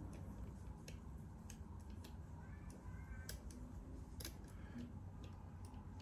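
Faint, irregular small metallic clicks of a lever mortice deadlock being picked, the pick and tension tool working against the levers inside the lock case.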